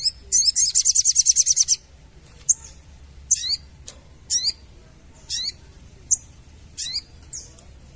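Sogon bird (crested jay) calling: a fast, high rattling chatter for about a second and a half, then single sharp notes that fall steeply in pitch, about once a second.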